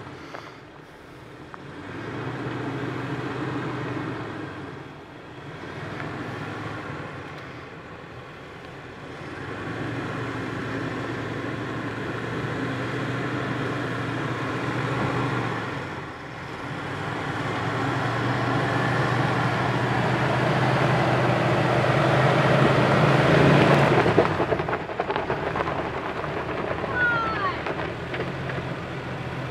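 2005 Jeep Wrangler Unlimited Rubicon's 4.0-litre straight-six running at low revs as it crawls down a rocky dirt trail, with tyres crunching over gravel. It grows louder as the Jeep comes close, loudest about 23 seconds in, then drops away.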